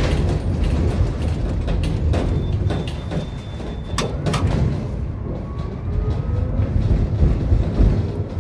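Bucharest tram running on its rails: a steady low rumble, with two sharp clicks about four seconds in and a faint rising whine in the second half.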